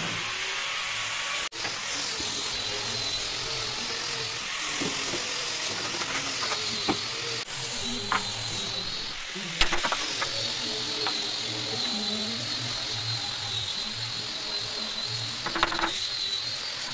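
Steady hiss of workshop background with a faint wavering high tone, broken by scattered sharp knocks of tools on wood. The loudest are a cluster of hammer blows about ten seconds in and another near the end, where a hammer drives a wood chisel into a bed-frame rail.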